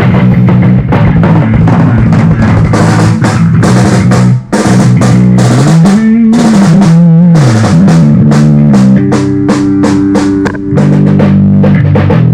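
A band playing loudly through a PA during a sound check: drum kit with kick and snare hits over bass and guitar. The low bass line slides up and back down about six seconds in.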